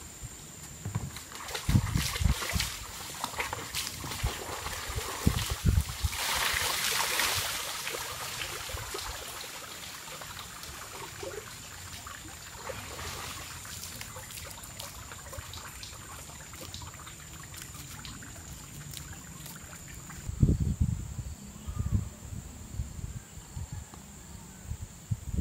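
Water splashing and trickling as a bucket is dipped into a small river and lifted out, with a stronger rush of water for a couple of seconds. Footsteps thump on a wooden plank footbridge.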